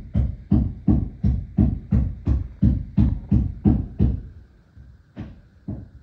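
Rapid, evenly spaced hammer blows, about three a second, that stop about four seconds in, followed by two more strikes after a short pause.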